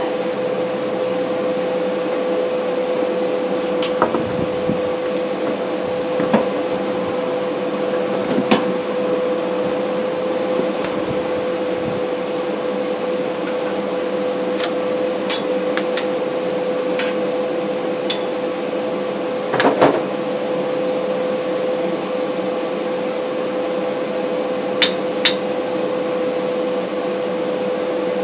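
Steady machine hum with one constant tone, with scattered light clicks and metal knocks, a small cluster a little before two-thirds of the way through.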